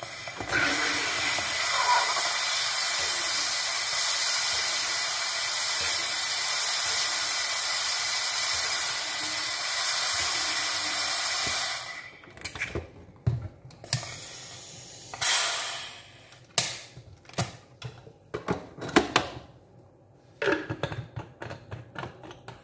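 Drinkmate sparkling water maker injecting CO2 into a bottle of water to carbonate it: a loud steady hiss that stops abruptly after about eleven seconds. After it come clicks and knocks and one short hiss as the bottle is released and taken off the machine.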